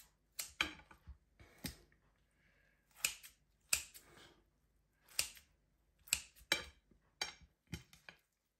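Kitchen scissors snipping through fried pork chops, a dozen or so sharp, irregularly spaced snips.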